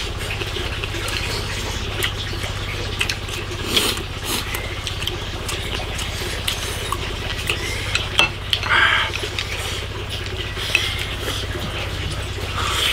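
Chopsticks clicking and scraping against ceramic rice bowls and a clay pot as two people eat braised pork with rice, with eating sounds between the clicks. A steady low hum lies underneath.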